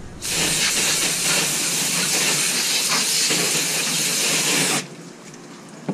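Hose spray nozzle jetting water onto a snakehead laid on a fish-cleaning table, rinsing the fish before it is cleaned. It is a steady hiss that starts just after the beginning and cuts off suddenly about five seconds in.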